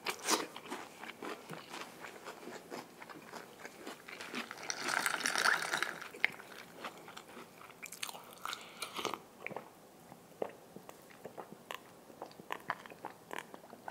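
Close-miked chewing and crunching of crunchy food, many short crisp crunches, followed by sips and swallows of iced cola from a glass mug.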